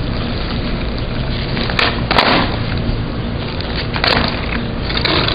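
Skateboard wheels rolling on asphalt, with a few sharp clacks of the wooden board hitting the ground during flatground tricks, about two seconds in and again around four to five seconds in.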